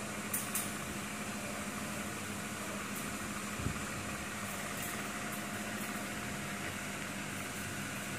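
Pliers clicking as fastening clips are crimped onto wire cage mesh: two clicks close together near the start and a few fainter ones later, with one duller knock a little past the middle. Under them runs a steady hum with a low tone.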